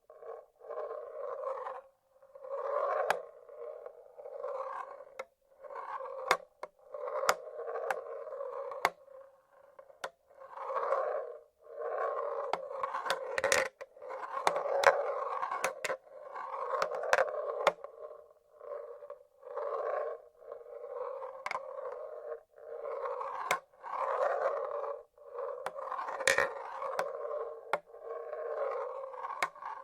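Marbles rolling along the tracks of a wooden marble-run machine: a run of rolling rumbles about a second long each, one after another, with sharp clicks of marbles knocking against the wood and each other.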